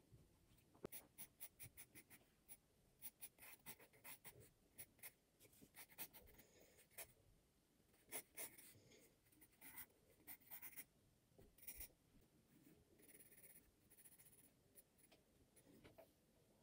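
Pencil scratching on sketchbook paper in many quick, short strokes, faint, with softer strokes near the end.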